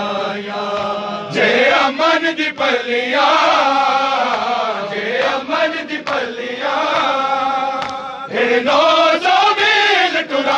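Men's voices chanting a noha, a Shia lament, in a slow melody that rises and falls.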